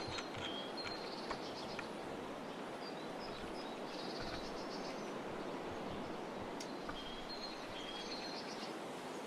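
Small songbirds calling with short, high chirps and twitters, scattered through a steady outdoor background hiss, with a few light clicks near the start.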